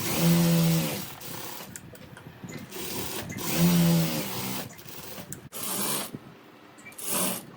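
Electric sewing machine stitching in short runs, starting and stopping about four times, each run a steady motor hum with needle clatter.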